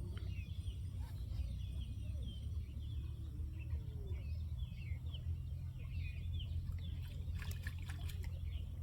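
Small birds chirping over and over in short calls that glide up and down, over a steady low rumble. A few sharp clicks come near the end.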